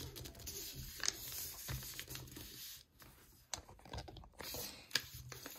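A sheet of letter-size paper rustling and crinkling as it is folded and pressed flat by hand, with scattered light clicks and taps.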